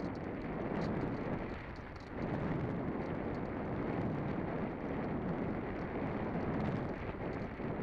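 Wind rushing and buffeting over the microphone: a dense, rumbling hiss that swells and eases with the gusts, dipping briefly about two seconds in.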